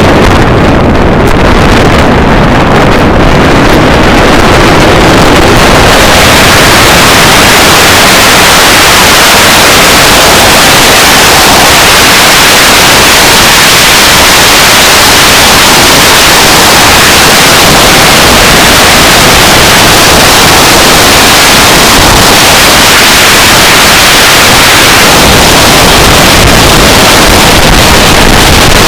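Loud, steady rush of wind noise from a car at speed, with no speech. The noise turns brighter and hissier about six seconds in and stays that way.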